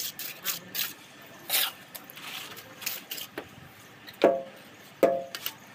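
Mason's steel trowel scraping and spreading cement mortar on a brick course, with short scrapes and light taps, then two sharp ringing clinks of the trowel against brick about four and five seconds in.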